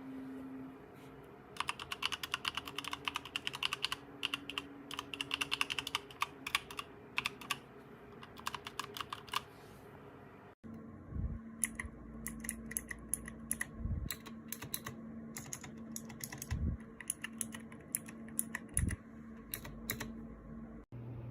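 Typing on a Logitech G715 mechanical keyboard: rapid runs of key clicks in two stretches, split by a short break about halfway through. The second stretch has a few heavier, deeper thumps among the clicks.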